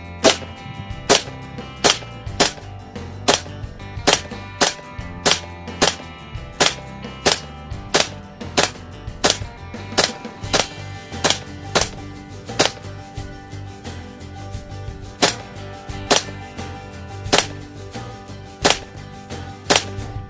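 Beretta APX blowback CO2 BB pistol firing a steady string of about two dozen shots, each a sharp crack with the slide cycling, at one to two shots a second, with a short pause about two-thirds through. Background music plays underneath.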